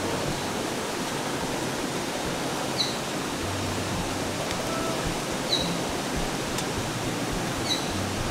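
River water rushing over rocks in a steady, even hiss. A short high chirp repeats about every two and a half seconds over it.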